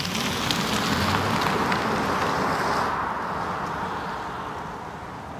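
Tesla Model 3 rear-motor electric car driving fast, a steady rush of tyre and wind noise. It swells over the first second, then slowly fades.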